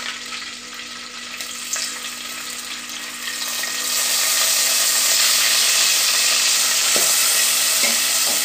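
Chopped onion, ginger, garlic and green chilli frying in hot ghee in an aluminium pot. The sizzle jumps louder about four seconds in as they hit the fat. A metal slotted spoon stirs and scrapes through them.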